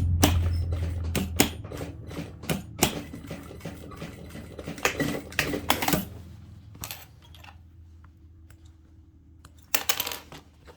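Sewing machine stitching through denim: a steady motor hum with dense needle clicks, slowing and stopping about six seconds in. After that, a few light clicks and a short burst of handling noise near the end.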